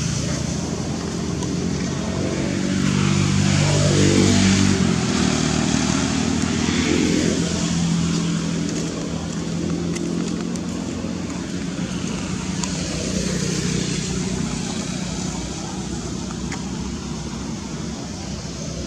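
Passing road traffic: a motor vehicle's engine hums steadily, grows louder with its pitch rising about four seconds in, then falls in pitch and slowly fades.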